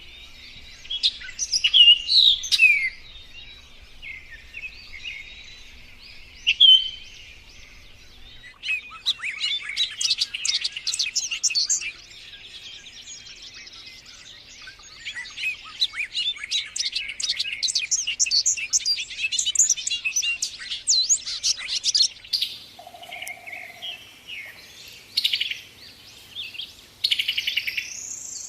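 Several wild birds singing and calling together in a morning chorus: a few loud whistled notes in the first seconds, then long stretches of dense, rapid chirping.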